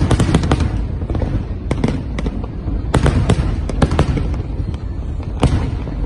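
Fireworks going off: a rapid run of sharp bangs and crackles in clusters, over a steady low rumble of booms.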